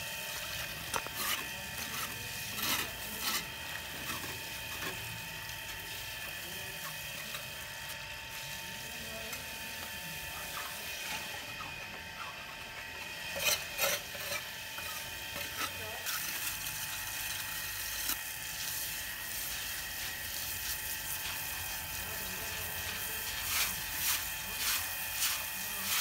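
Outdoor brick-and-mortar work: a steady hiss with a faint hum underneath, broken by scattered sharp taps and knocks of tools on bricks, in a few clusters.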